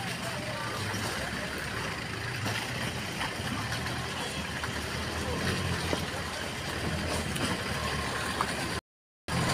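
Land Rover Series engine running steadily at low revs as it crawls through a muddy, water-filled track channel. The low hum holds fairly even, with a brief dropout in the audio near the end.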